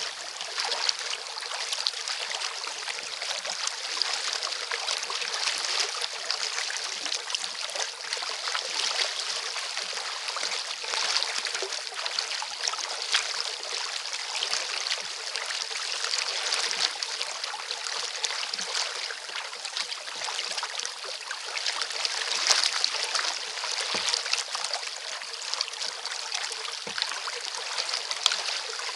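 Water splashing and trickling around a recreational kayak being paddled through light chop: a steady run of small splashes and drips as the blades and small waves meet the hull.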